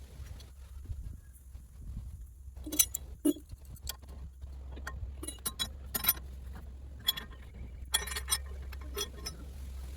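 Scattered metallic clinks and clicks of hand tools and parts being handled, irregular and sharp, over a steady low hum.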